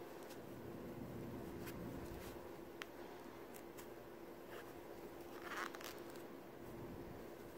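Faint handling of a crochet hook and yarn: soft rustles and a few small clicks, with a short louder rustle a little past the middle, over a steady faint hum.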